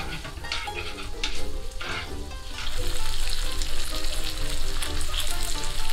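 Spaghetti and pancetta sizzling in a frying pan as they are tossed with tongs and a fork, with a few utensil scrapes in the first two seconds. The sizzle grows louder about three seconds in as the added starchy pasta water cooks off.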